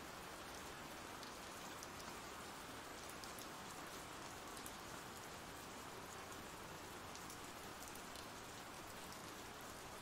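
Faint, steady rain sound effect: an even hiss of rainfall with light scattered drop ticks.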